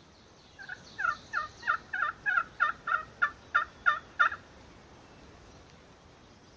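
A hand-worked wild turkey call yelping: a run of about a dozen evenly spaced yelps, about three a second, starting about half a second in and lasting nearly four seconds. The call is wet from the rain, which the caller counts as bad calling.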